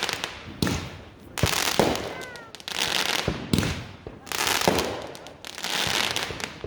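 Consumer fireworks going off in a rapid series: sharp bangs about once a second, each followed by a crackling trail. A brief high-pitched gliding cry sounds about two seconds in.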